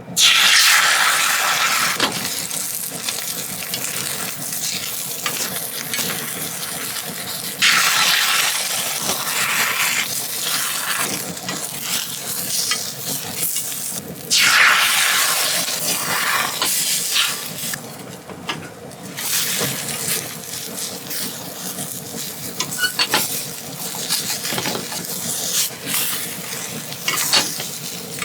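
Food sizzling as it fries in a hot pan. The sizzle surges suddenly at the start, again about 8 seconds in and about 14 seconds in, with scattered light clicks of a utensil against the pan.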